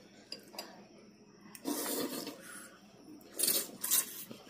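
People slurping noodles from bowls of noodle soup (thukpa). There are two wet, noisy slurps, one about two seconds in and a louder one near the end.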